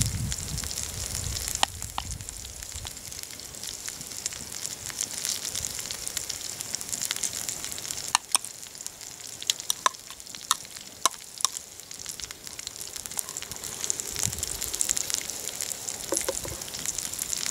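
Deer organ meat sizzling steadily in a skillet over a wood fire. Several sharp clicks and taps come about halfway through, as more pieces are forked in from a cup and land in the pan.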